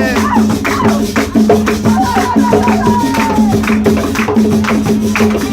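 Tuna ensemble music: rhythmic, closely spaced percussive strokes with a rattling percussion instrument over a steady low note.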